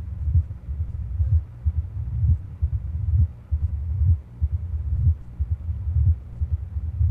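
Heart sounds heard through a stethoscope, beating about once a second, with a low-pitched rumbling mid-diastolic murmur between beats: the murmur of a stenosed mitral valve (mitral stenosis).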